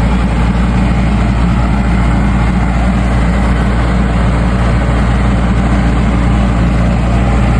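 Farm tractor engine running steadily at a constant speed, loud and close, with no change in pitch.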